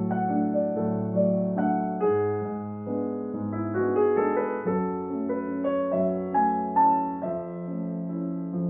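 Background piano music: a gentle melody of sustained notes struck every half second or so.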